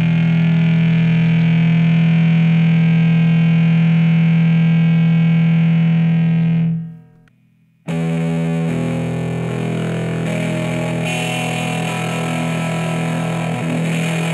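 Electric guitar played through the Big Fuzz pedal model of a Fender Mustang GT-40 amp. First the fuzz is placed before the amp model: a held note with very good long sustain that fades out about seven seconds in. After a short gap the fuzz is placed after the amp model and the guitar comes in again with a horrendously muddy sound.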